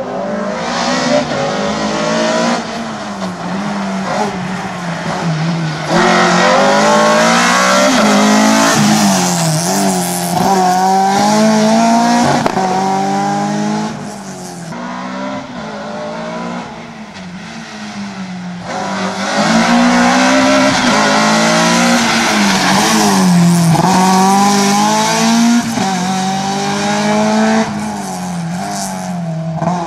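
Škoda Octavia 1.8 competition car's engine revving hard and dropping back over and over as it accelerates and brakes through a slalom, with tyre squeal in the turns. It fades for a few seconds about halfway through as the car runs farther off, then comes back up loud.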